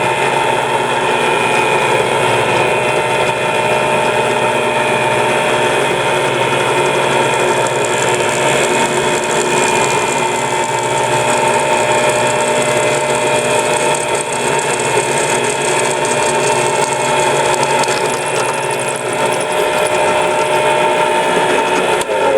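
Electric drill running steadily as it bores a hole through the flattened pad of a forged horseshoe nail, with a steady whine throughout; the motor winds down at the very end once the hole is through.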